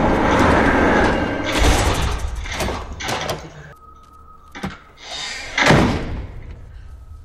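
Horror film soundtrack playing: a dense wash of noise, then several sharp surging hits, a lull with one sharp knock, and a big swelling burst about six seconds in that dies away.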